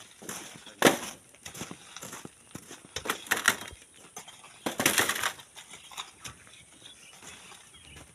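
Hand tools scraping and crunching into sand and gravel in short, irregular bursts. The loudest come about a second in, around three seconds and around five seconds.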